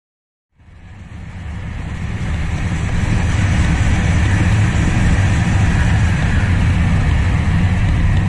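Motorcycle riding at about 75–80 km/h, heard from an onboard camera: a steady low rumble under heavy wind rush on the microphone, fading in over the first two seconds.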